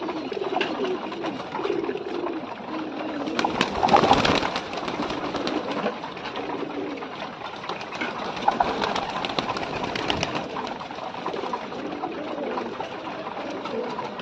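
Flock of Giribaz pigeons cooing while pecking grain from a clay bowl, with many small clicks from the pecking. A brief, louder burst of noise comes about four seconds in.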